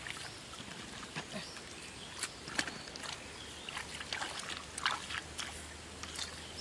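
Bare hands digging and pulling at wet mud in shallow water, wet mud squelching with small irregular clicks and splashes.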